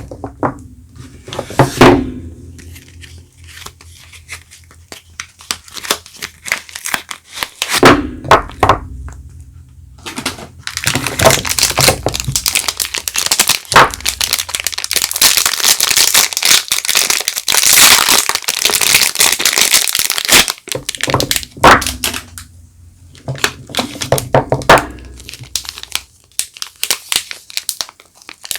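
Soap bars being unwrapped: packaging crinkling and tearing, densest in the middle, with several sharp thunks as bars or boxes are handled and set down.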